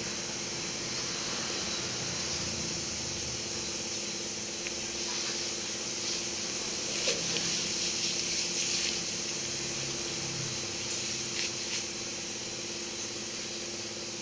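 Steady hiss with a faint low hum underneath and a few faint clicks about halfway through, with no speech.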